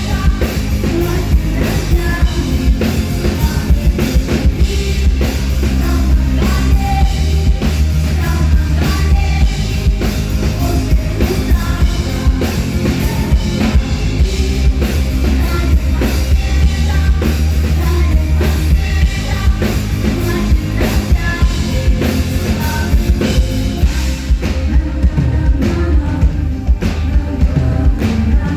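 Live rock band playing loudly, the drum kit and heavy bass to the fore, with singing over them; the cymbals drop away near the end.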